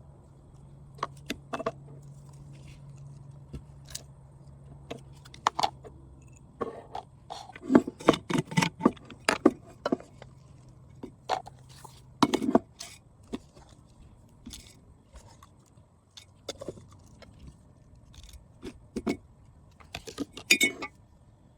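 Kitchen containers being handled: scattered clinks, knocks and scrapes, with a dense run of louder knocks in the middle. A low steady hum stops about halfway through.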